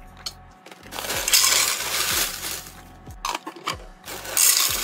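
Dry cereal poured into a clear plastic countertop cereal dispenser, clattering against the plastic, in two loud pours: one about a second in and one near the end.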